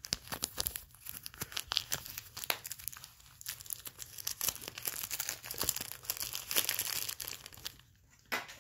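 Vacuum-sealed plastic wrapper crinkling and tearing as it is pulled open by hand, a dense run of crackles that stops about eight seconds in.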